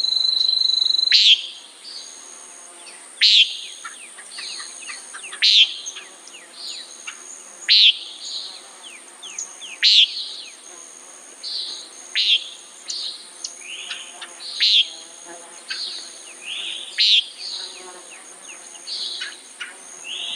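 Common nighthawk calling, a short sharp call repeated nine times about every two seconds. Fainter chirps sound in between, over a steady high insect buzz.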